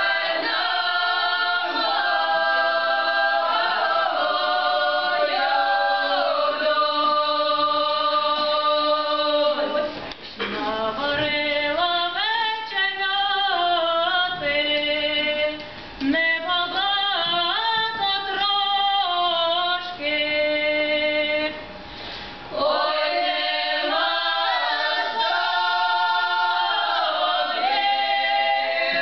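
A women's ensemble singing a traditional Ukrainian folk song unaccompanied, in the authentic village style, with several voices together. The song goes in long held phrases broken by short pauses, with quicker, more gliding lines in the middle stretch.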